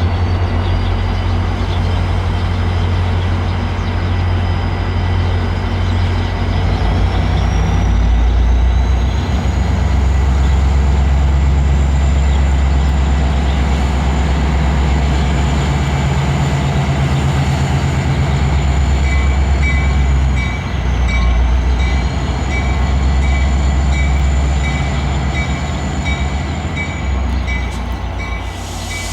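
Metra MP36PH-3S diesel locomotive running under load as the train backs, with a steady low rumble and a high whine that rises partway through. A regular, quick high ding joins about two-thirds of the way in.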